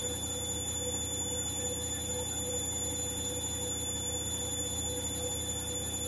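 Hoover H-Wash & Dry washer-dryer in its spin cycle: a steady hum with high-pitched motor whine, and a tone that swells and fades a little more than once a second.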